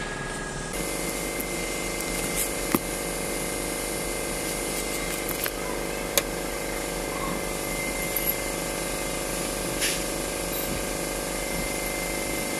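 Steady mechanical hum with a few sharp metallic clicks and taps of tools on a diesel injection pump as its steel injection lines are fitted.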